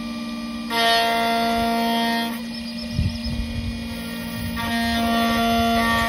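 Xhorse key-cutting machine cutting a Ford Transit Custom key blade, its motors giving a steady pitched whine. The whine comes in two stretches, starting about a second in and again at about four and a half seconds, with a few light knocks between them.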